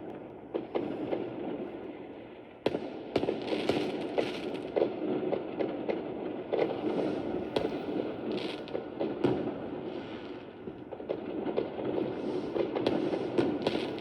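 Fireworks going off: many sharp pops and bangs over a continuous noisy background, getting louder a little under three seconds in.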